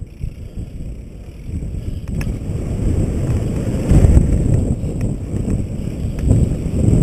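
Wind buffeting a mountain bike's camera microphone on a fast downhill run, mixed with tyre rumble and the odd clatter of the bike over the dirt trail. It grows louder from about two seconds in as the bike picks up speed, with gusts near the middle and near the end.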